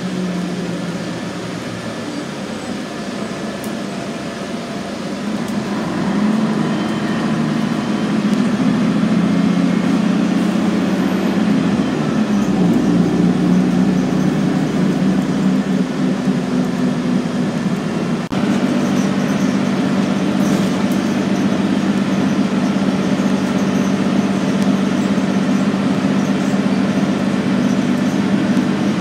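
Scania N113CRB city bus heard from inside the passenger cabin: engine and drivetrain drone under road noise as it drives. The drone grows louder and rises slightly about six seconds in as the bus pulls harder, with a single sharp click about two-thirds of the way through.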